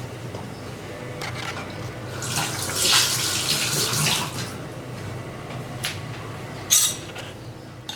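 Water running from a tap, building up for a few seconds and then trailing off, followed by one sharp clink near the end.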